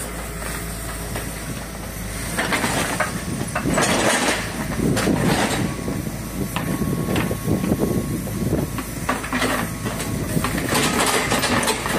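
Kobelco mini excavator's diesel engine running steadily under load while its grapple swings bagged waste and rubble into a dump truck, with repeated spells of rustling, clattering and knocking from the debris.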